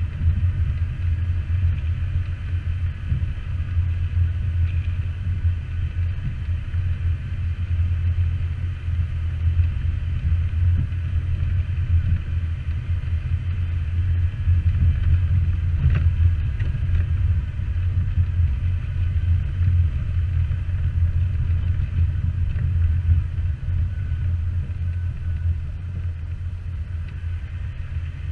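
Jeep driving on an off-road trail: a steady low rumble of engine and drivetrain, with no revving.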